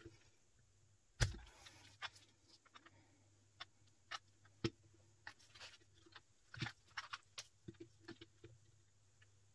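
Faint, scattered clicks and taps of small tools and plastic parts being handled on a metal worktop, with one louder knock about a second in.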